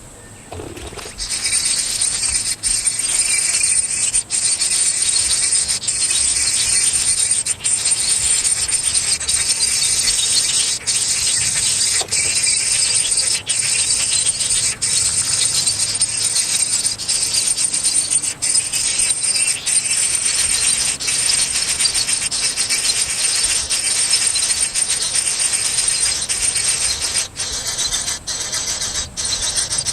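Loud, steady, high-pitched buzzing of an insect chorus, starting about a second in.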